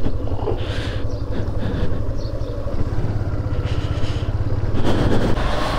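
Motorcycle engine running steadily at low speed, heard through a helmet-mounted camera.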